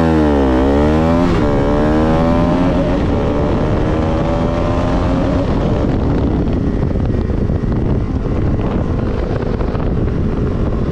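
Bajaj Pulsar RS 200's single-cylinder engine through a replica Akrapovic slip-on exhaust, pulling hard under acceleration. The note drops and climbs again twice in the first two seconds as it shifts up, then rises more slowly and levels off at a steady cruise, with wind rushing over the microphone.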